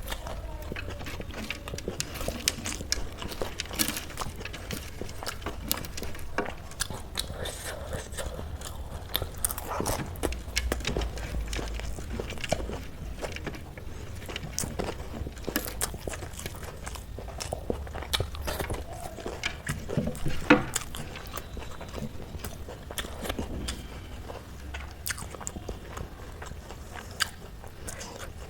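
Close-miked chewing and crunching of food, with a dense run of small crackles and mouth clicks.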